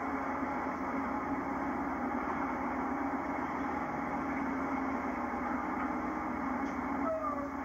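A sportfishing boat's engine running with a steady drone, mixed with wind and sea noise. A brief falling tone comes near the end.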